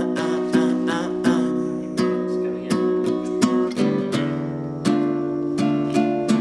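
Acoustic guitar strumming chords in a steady rhythm, a passage between sung lines of a song.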